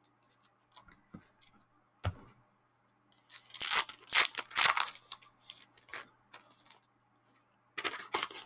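A few light taps and a knock, then packaging around a set of postcards being rustled and torn open, in two crinkly stretches.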